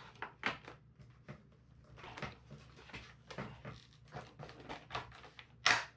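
The foam wing of an Arrows SZD-54 model glider being worked out of its fuselage by hand: a run of short creaks, scrapes and clicks, with one louder scrape near the end.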